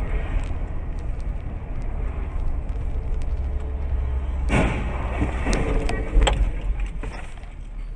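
Steady road and engine rumble heard from inside a moving car. About four and a half seconds in comes a car-to-car collision just ahead: a crash of impact, then further sharp knocks of flying debris over the next two seconds.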